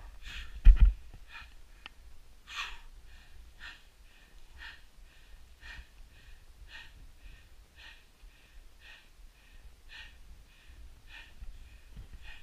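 Heavy, quick breathing of a climber scrambling a steep rock ridge, short even breaths about twice a second from exertion. A loud thump on the microphone about a second in.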